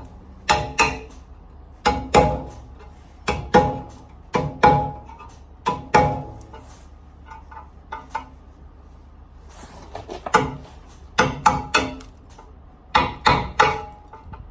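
Metal magnesium spreader being struck again and again to knock loose hardened magnesium, giving sharp ringing clangs in irregular clusters of two or three, with pauses of a second or more between them.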